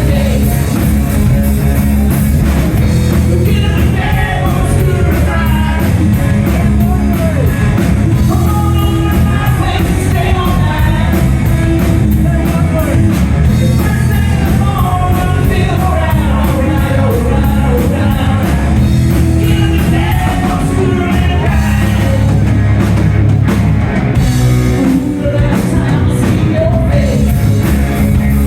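Live rock band playing loudly, with a male lead singer over drums, bass and electric guitar.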